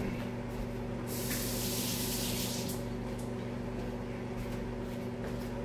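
Kitchen tap running briefly, a hiss of water lasting about a second and a half, as a lemon is rinsed under it, over a steady low appliance hum.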